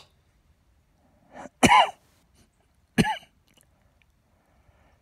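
A person coughing twice, about a second and a half apart.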